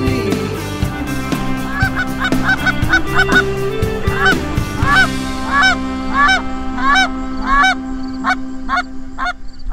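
Geese honking: a long run of short, rising-and-falling honks that starts about two seconds in and goes on nearly to the end, over background music.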